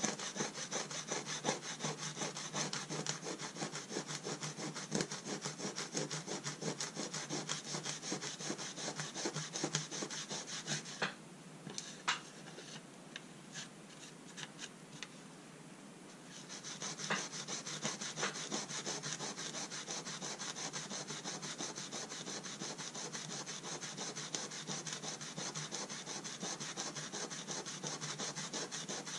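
Brass scale plate being scoured with rapid back-and-forth strokes of an abrasive pad, a dry scratchy rubbing. About eleven seconds in the scrubbing stops for a few seconds, with only a few light clicks as the plate is handled and turned, then the scrubbing starts again.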